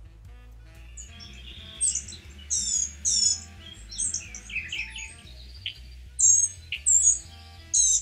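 Blue-gray gnatcatcher calling: a string of about eight short, high-pitched, buzzy 'see' notes at irregular intervals, like a high-pitched insect.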